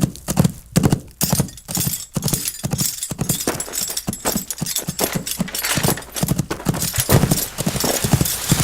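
Rapid, irregular horse hoofbeats, several strikes a second.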